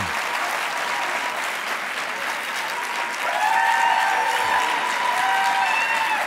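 Studio audience applauding with steady clapping. About halfway through, a few held, steady tones join over the clapping.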